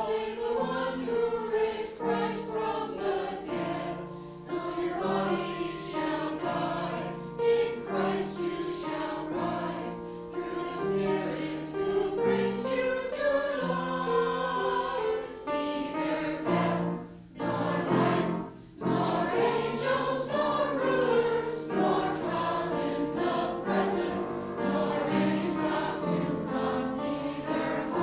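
Choir singing a hymn in sustained phrases, with short breaks between lines.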